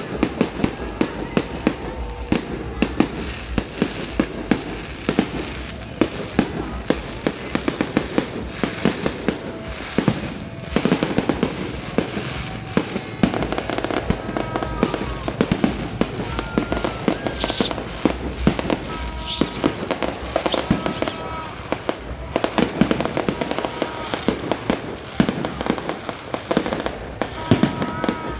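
Fireworks going off continuously: a dense run of bangs and crackling pops, several a second, with no let-up.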